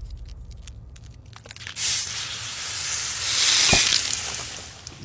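A few faint clicks, then a loud hiss that starts suddenly, swells and slowly fades, with a brief low thump in the middle.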